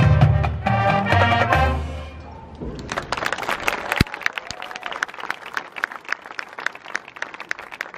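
High school marching band's brass and low brass holding loud sustained chords that end about two seconds in, followed by audience applause, with one sharp thump about four seconds in.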